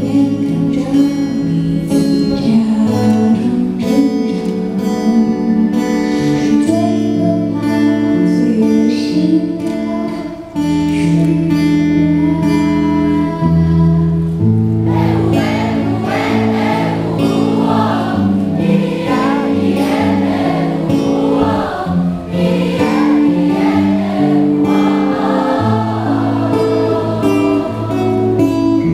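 Live pop song played through a concert sound system: held chords over a bass line, with a woman's voice singing the melody from about halfway on.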